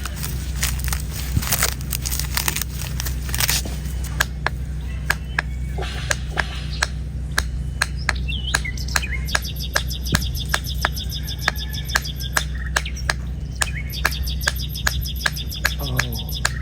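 A bird chirping in quick repeated high notes, over a steady low hum and a run of sharp, evenly spaced clicks at about three a second. In the first few seconds there are crunching scrapes from a knife working the dry husk of an old coconut.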